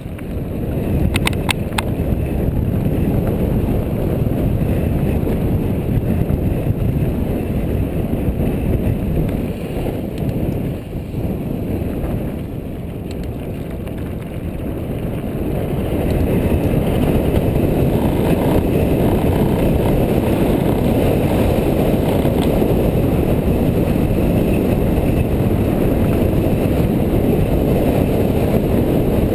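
Mountain bike descending a dirt fire road: a steady rush of wind on the microphone mixed with tyres rolling over gravel, with a few sharp clicks about a second in. It grows louder past the middle as the speed picks up.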